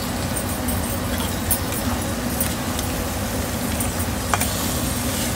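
Metal spoon stirring and scraping through mutton fry with cashews in an iron kadai, with light metallic clinks and a sharper knock about four seconds in, over a steady background hiss.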